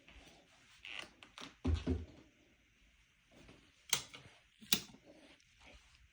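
Scattered knocks and clicks in a small room: a dull thump just before two seconds in, then two sharp clicks a little under a second apart.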